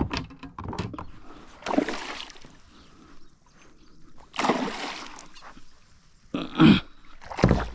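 Water splashing in a few short, noisy bursts, about two seconds in and again around four and a half seconds, with short loud sounds near the end.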